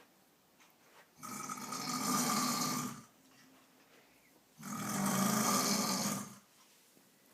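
Two long, loud snores, each lasting nearly two seconds, with quiet pauses before and between them.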